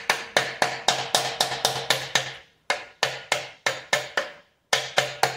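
Ratchet on the crankshaft bolt of a Subaru flat-four engine clicking steadily, about five clicks a second, as the crankshaft is turned by hand, with two short pauses.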